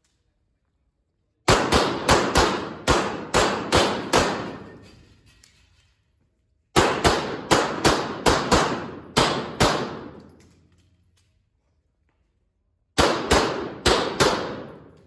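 Glock 26 9mm subcompact pistol firing three fast strings of shots, about eight, then nine, then five, a few tenths of a second apart. Each report rings on in the reverberant indoor range.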